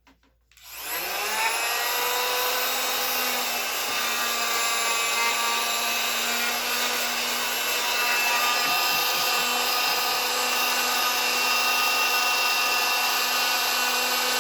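A power tool's motor starts about half a second in, spins up within a second, and runs on with a steady high whine.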